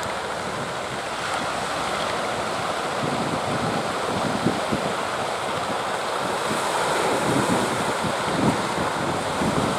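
Strong wind buffeting the microphone over the steady rush of surf, with gusts growing heavier partway through.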